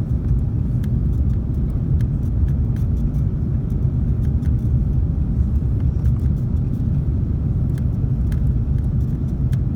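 Steady low rumble of an Airbus A330-300 airliner heard from inside the passenger cabin, with faint light clicks scattered through it.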